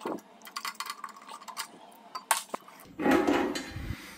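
Perforated sheet-metal grille cover being taken off the underside of an inverter: light metallic clicks and rattles, then a louder scraping rattle about three seconds in as the grille comes free.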